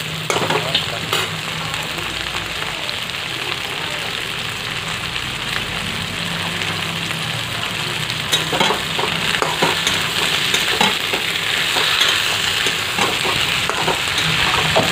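Mixed vegetables sizzling in oil in a wide aluminium kadai, half-fried, while a metal spatula stirs them. The spatula clicks and scrapes against the pan, and these clicks come more often from about eight seconds in.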